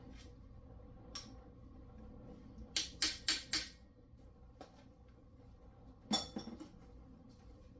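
Metal engine parts and tools clinking and clanking: a quick run of four sharp clinks about three seconds in, and another short clatter about six seconds in.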